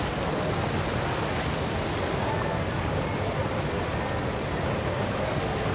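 Steady mix of outboard engines running at idle and water wash around the hulls, with faint distant voices from many people.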